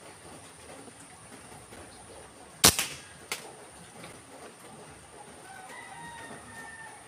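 A single air-rifle shot about two and a half seconds in: one sharp crack, then a fainter click about half a second later. Faint bird calls follow near the end.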